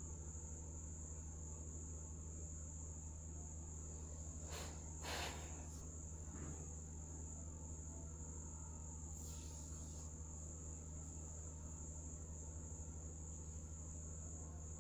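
Quiet room tone: a steady low hum under a constant high-pitched whine, with a few faint rustles about four to five seconds in and again near ten seconds.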